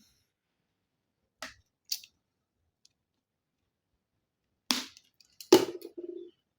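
Plastic casing of an Oraimo Wrap Bluetooth speaker being pried open: two light clicks, then a few seconds later two louder cracks close together as the clips let go, the second with a short creak.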